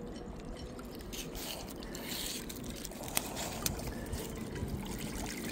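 Shallow water lapping and splashing against shoreline rocks over a steady low rumble, with two light clicks a little past the middle.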